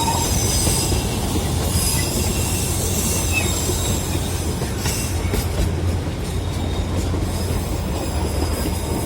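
Narrow-gauge Darjeeling Himalayan Railway train running on its track: a steady rumble, with thin high-pitched wheel squeals coming and going.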